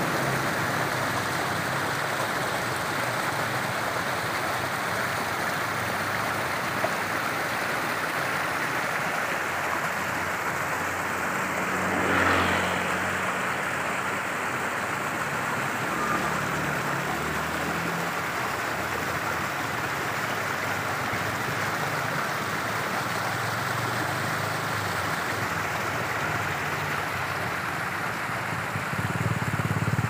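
Steady outdoor hiss, with a motor vehicle engine briefly growing louder and fading about twelve seconds in.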